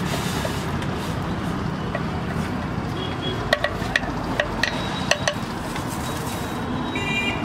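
Steady street and traffic background noise at a food stall, with a quick run of about seven sharp, ringing metallic clinks from about three and a half seconds in, lasting about two seconds.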